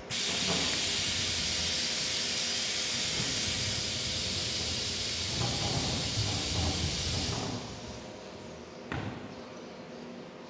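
Steady loud hiss from the YIHAI YH-1325 acrylic sign-letter forming machine while its upper frame rises. The hiss cuts off about seven and a half seconds in. A single knock follows about nine seconds in.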